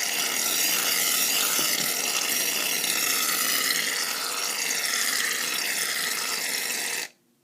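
Aerosol can of shaving foam dispensing into a bowl with a steady, loud hiss that stops abruptly near the end.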